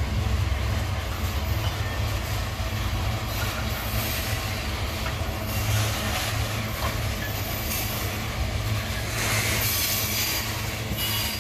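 Loaded iron-ore gondola wagons of a freight train rolling past on the rails: a steady low rumble of wheels and cars, with a brief burst of higher hissing noise about nine seconds in.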